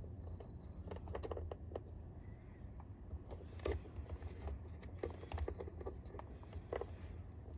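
Irregular small clicks and taps of tools and small connector parts being handled on a workbench during soldering, over a low steady hum.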